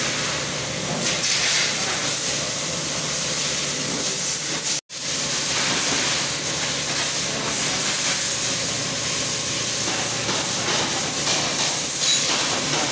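Steady hiss of noise that drops out completely for an instant about five seconds in.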